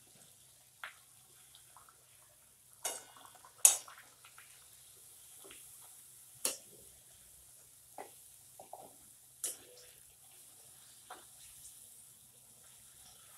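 Puris deep-frying in hot oil in a metal kadhai: a soft, steady sizzle, with a perforated metal slotted spoon clinking sharply against the pan several times as the puris are pressed and turned, the loudest clink about three and a half seconds in.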